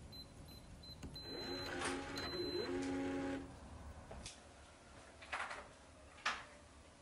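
A door creaking as it swings slowly open, with a drawn-out hinge creak whose pitch bends upward partway through. Then three soft footsteps come about a second apart.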